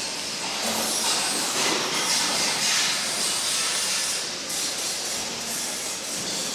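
Steady factory machinery noise: an even, continuous hiss without distinct knocks or rhythm.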